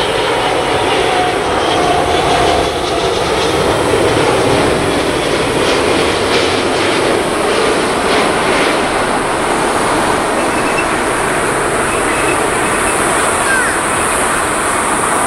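Loud, steady jet noise from the four Engine Alliance GP7200 turbofans of an Airbus A380-861 passing low overhead on final approach.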